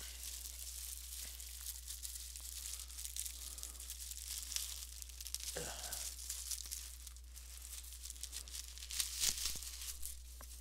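Plastic wrapping crinkling and rustling as a folded T-shirt is pulled out of its bag and unfolded, the loudest rustle coming about nine seconds in.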